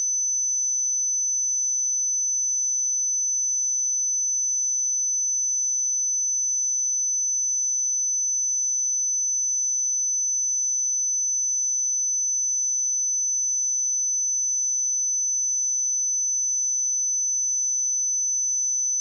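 Pure sine-wave test tone at 6043 Hz: a single steady high-pitched whistle held at constant pitch and level.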